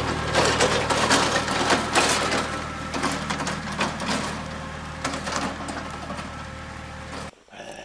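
Kubota compact diesel tractor running steadily as it drives off, with dense crackling and crunching from its tyres rolling over the ground. The sound fades as it pulls away and cuts off suddenly near the end.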